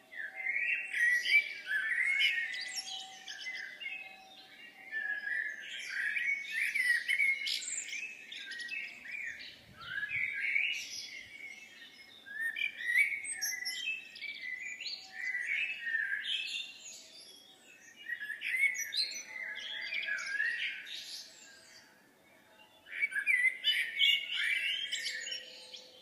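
Songbirds singing: short, rapid warbling phrases repeat every couple of seconds, with a brief pause a little before the end.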